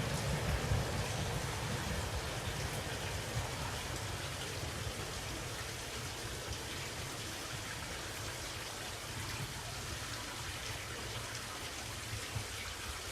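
A KiHa 40 diesel railcar receding after passing, its low rumble slowly fading away under a steady hiss.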